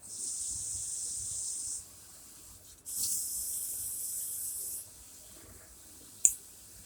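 Water spray bottle misting live hairy crabs: two long hissing sprays, then a sharp click near the end.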